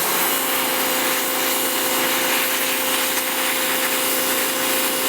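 A small motor-driven cleaner running steadily as it swirls the stove's hardware, giving an even hiss with a held tone.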